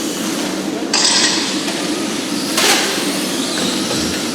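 RC short-course trucks racing around the track: a steady noisy whirr of motors and tyres, with a louder rush of hiss about a second in and a short sharp clatter a little past halfway.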